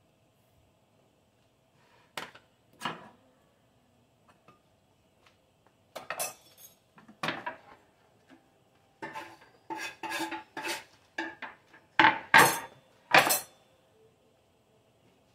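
Kitchenware being handled and set down on a stone countertop: a ceramic bowl, a wooden cutting board and a knife. Scattered clinks and knocks, coming more often after about nine seconds, with the three loudest knocks near the end.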